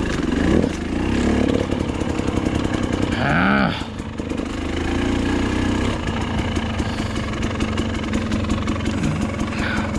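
Dirt bike engine running while riding a trail, its pitch rising and falling with the throttle, with a quick rev about three seconds in.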